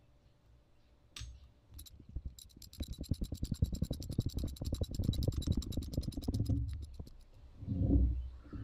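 Socket ratchet wrench clicking in a rapid, even run as it tightens the bolt of a hose clamp on an LPG regulator's gas hose. A single click comes before the run, and a dull handling thump follows near the end.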